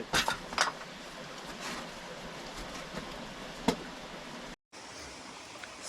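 Creek water running steadily in the background, with a few sharp knocks about a quarter second in, just over half a second in, and near four seconds in.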